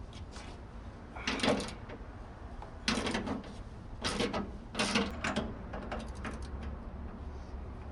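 Metal parts being handled at the truck's rear suspension: four short bouts of clanking and scraping about a second apart, then a few lighter clicks.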